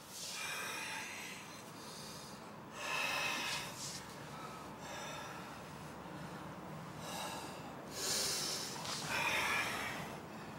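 Karateka breathing hard and forcefully after kumite, a series of loud breaths each about a second long and a few seconds apart, the loudest near the end.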